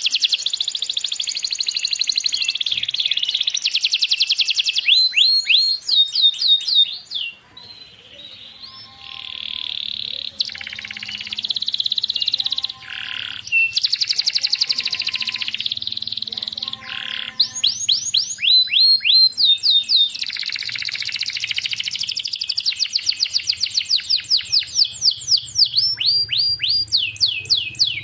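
Domestic canary singing a long, continuous song of fast trills, rolls and rapid runs of repeated downward-sweeping notes, dropping off briefly about seven seconds in before resuming.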